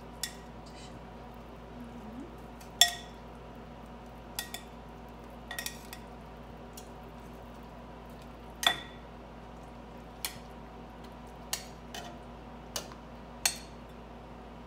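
Metal kitchen tongs clinking against a glass bowl and a stainless steel stockpot as peeled potato halves are lifted out of the bowl and put into the pot. About ten sharp clinks come at irregular intervals, each with a short ring; the loudest come about three seconds in and near nine seconds in.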